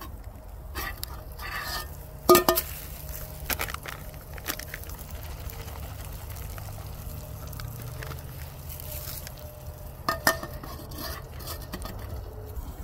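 Green beans frying quietly in a pan on a small wood-burning camp stove, with a few clinks and knocks of the metal pan and its lid being handled, the loudest about two seconds in and another near ten seconds.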